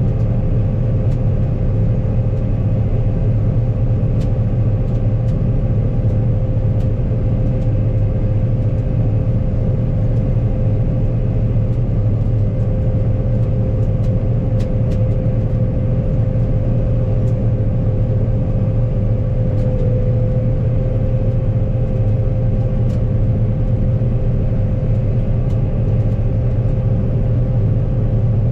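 Heavy farm machine's diesel engine running steadily under load, a constant low drone with a steady higher whine over it and a few faint ticks.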